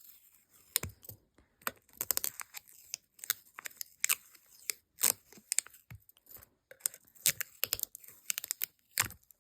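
Stickers being peeled off their backing sheet and handled close to the microphone: irregular, sticky crackles and crinkles.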